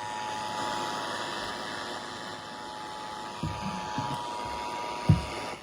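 Radio static hiss with the Emergency Alert System two-tone attention signal, held faintly under it. A few low thumps near the end, the last the loudest.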